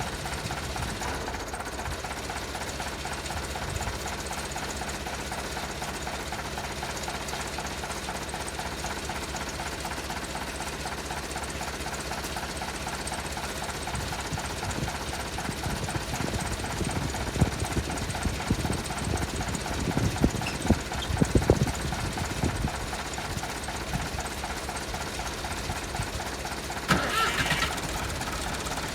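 Tractor engine running with a steady, fast rhythmic clatter; in the second half several louder knocks and clunks come over it.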